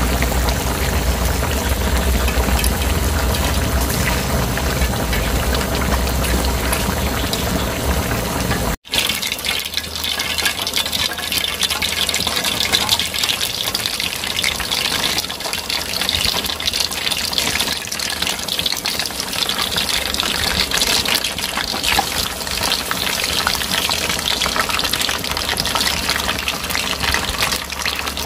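Curry leaves, then battered chicken pieces, deep-frying in hot oil in a steel pot: a steady sizzling hiss with crackles and pops. The first part has a low hum under it and cuts off abruptly about nine seconds in, after which a brighter, busier sizzle of the chicken frying takes over.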